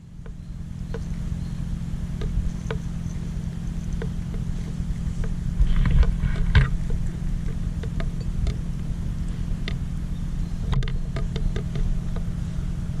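A cat chewing dry kibble, with scattered small irregular crunches and a denser cluster about halfway through, over a steady low rumble.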